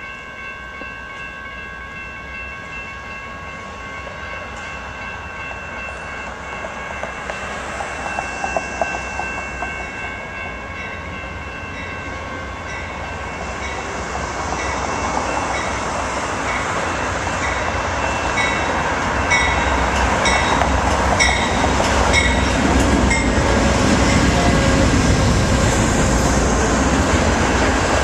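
Amtrak Empire Builder's GE Genesis diesel locomotives approaching and passing close by, growing steadily louder, with a bell ringing about once a second from about halfway through. Near the end the double-deck Superliner cars roll by with wheels clicking over the rail joints.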